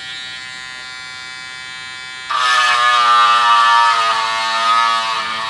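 Mini linear electric sander pen (18 W reciprocating sanding pen) running with a steady, even-pitched buzz. About two seconds in it turns much louder and harsher as the round sanding pad is worked against hard clear plastic, the pitch wavering a little under the load.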